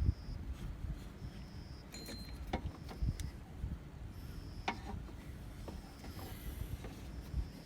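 Scattered sharp clicks and light knocks of a wrench and hands working in a car's engine bay during a drive-belt change. A faint, short high chirp repeats about every second and a half.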